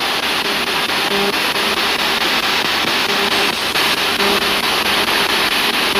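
Spirit box radio sweeping through stations: a steady hiss of static chopped into rapid short slices, with brief snatches of broadcast sound and humming tones breaking through now and then.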